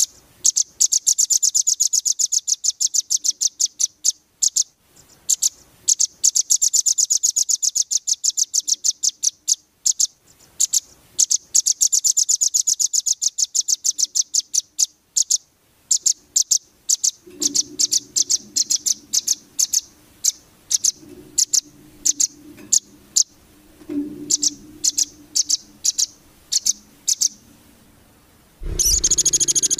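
Small songbird singing very rapid, high trills of sharp chip notes in bursts of a few seconds, the fast 'nembak' style sought for song-training recordings. In the second half the chips come slower and spaced, over a low steady hum, and a louder, fuller sound begins near the end.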